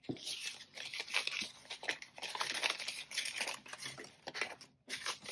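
Paper banknotes rustling and crinkling as a stack of cash is handled and sorted, near-continuous with a brief pause near the end.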